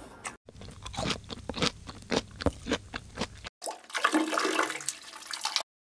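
Dogs eating and drinking from stainless-steel bowls: a run of quick, irregular wet laps and slurps, then, after a cut about three and a half seconds in, softer watery lapping.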